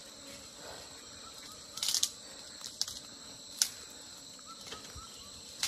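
A steady high-pitched insect drone in the jungle background, broken by a few short scraping knocks from digging at the hole. The loudest knocks come about two seconds in, with another a little past halfway.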